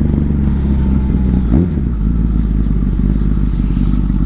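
Kawasaki ZX-10R's inline-four engine running steadily under way, with a brief break and shift in pitch about a second and a half in.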